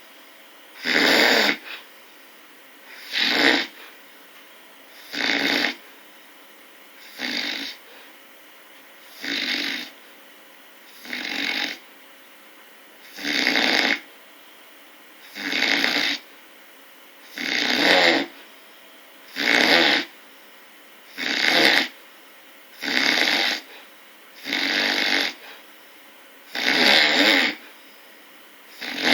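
Snoring: a steady rhythm of rasping snores about two seconds apart, some noticeably softer than others.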